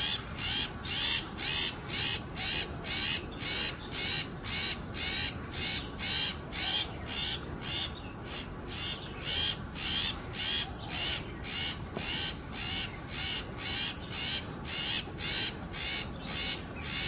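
Long-tailed shrike (cendet) calling, repeating one short note over and over at about two a second.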